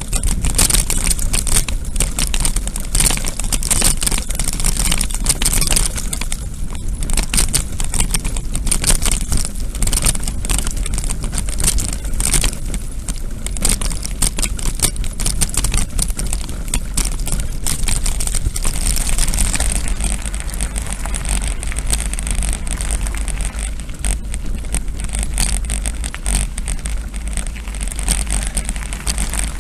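Mountain bike riding over a rough dirt and gravel track: a steady rattle and crunch of tyres and frame, with wind rumbling on the microphone.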